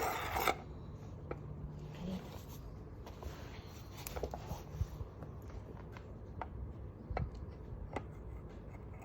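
A generic-brand ceramic paring knife being sharpened on a Kyocera knife sharpener, blade pulled through it. A loud rasping scrape in the first half-second, then quieter rubbing with scattered light clicks.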